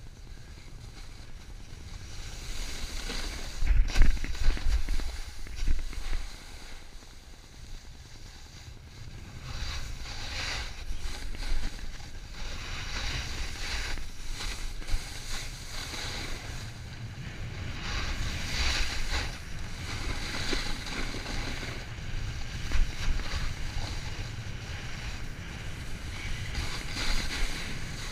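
Snowboard sliding down a groomed run, the board scraping over the snow in repeated swells as it turns, with wind rumbling on the camera's microphone. A sharp knock with a loud gust of rumble about four seconds in.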